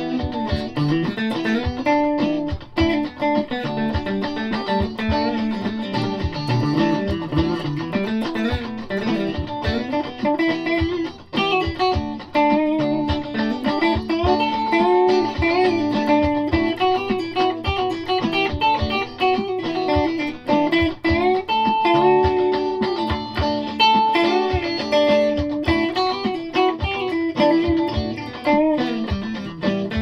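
Electric guitar played through an amp in a continuous run of single notes and chords, on a clean setting with the outer coils of its pickups selected.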